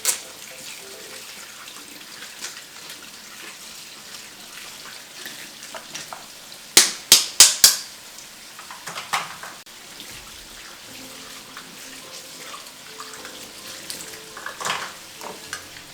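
Running tap water at a kitchen sink as washed dishes are rinsed, with sharp clinks of dishes knocking together: a quick run of four about seven seconds in, and a few single clinks later.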